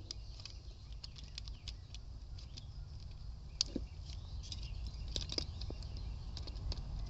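Light, irregular clicks and scratches of hands and small tools handling the parts of a hot tub's replacement power plug during installation, over a low steady rumble.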